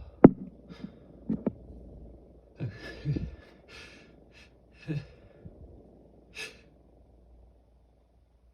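A person sneezing, set off by cayenne pepper powder: one loud, sharp sneeze just after the start and two smaller, quicker ones about a second later, followed by heavy breaths and sniffs.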